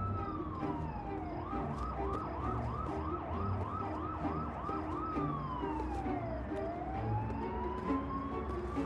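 Emergency vehicle siren: a slow wail falling in pitch, changing about a second and a half in to a fast yelp of about four cycles a second, then back to a slow wail that falls and rises again. Music plays underneath.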